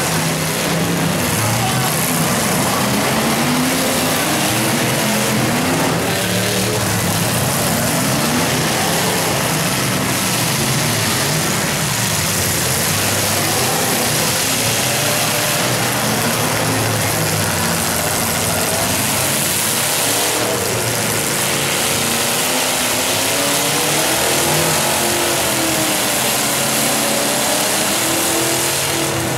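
Engines of several full-sized demolition derby cars revving together, their pitches rising and falling over one another.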